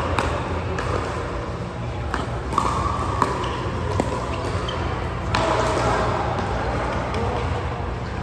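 A handful of sharp clicks of hard objects striking, at irregular intervals, several followed by a brief ringing tone, with a louder impact about five seconds in. Steady room noise runs underneath.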